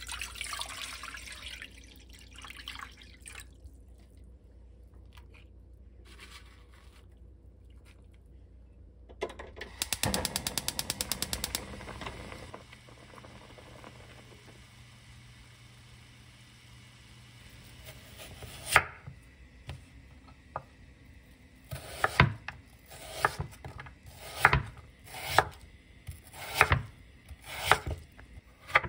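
Water poured in a stream into a metal pot, then a short run of rapid clicking and a soft steady hiss of water boiling. In the last third, a kitchen knife cuts through Korean radish onto a wooden cutting board in a series of sharp chops, roughly one a second.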